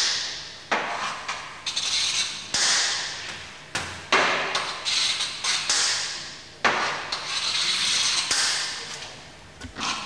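Tools knocking and scraping against the metal of an empty cheese vat: about eight sharp strikes at uneven intervals, each dying away in a hissing ring.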